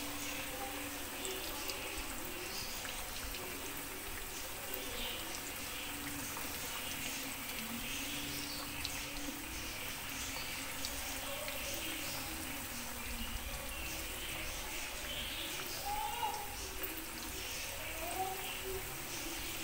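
Marinated fish pieces deep-frying in hot oil in an iron kadai: a steady sizzle with many fine crackles.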